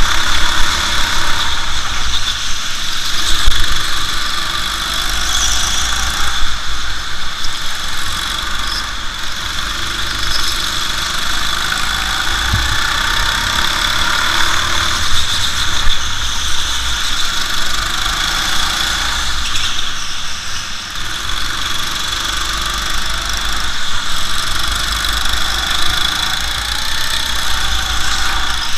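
Go-kart engine running at speed, heard from a camera on the kart, its pitch rising and falling as the kart brakes and accelerates through the corners.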